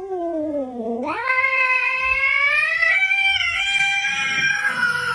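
Domestic cat yowling in one long, unbroken call. It starts low and dips, jumps up in pitch about a second in and holds there, then slides down again near the end.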